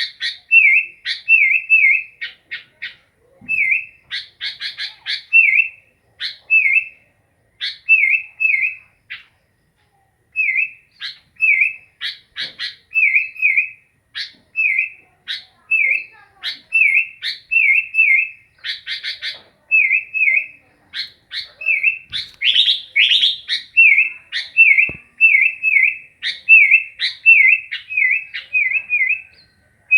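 Sooty-headed bulbul (kutilang) singing: short whistled notes that dip and rise, repeated over and over in twos and threes, broken by a few bursts of fast chattering.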